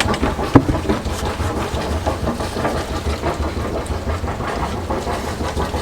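A sailing yacht's inboard engine idling with a steady, pulsing low rumble while the boat waits to spring off its berth. There is one sharp click about half a second in.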